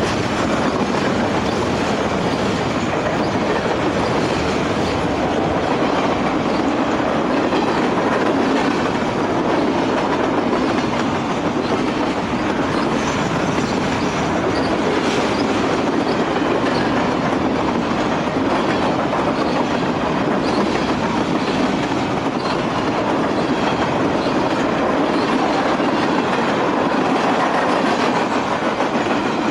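Freight cars of a long mixed freight train rolling past at speed close by: a steady, loud rumble and rattle of wheels and car bodies, with wheels clicking over rail joints.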